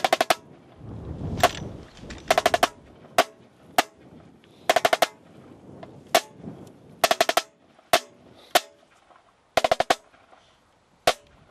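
Marching snare drum beating a slow cadence: quick groups of three to five strokes about every two and a half seconds, with single strokes between them, each stroke crisp and ringing.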